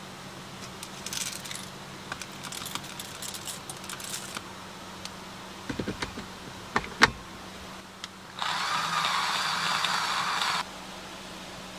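Cold-brew coffee preparation: packaging crinkling and rustling, a few sharp clicks and knocks from the bottle and its parts, then a steady pour lasting about two seconds that starts and stops abruptly.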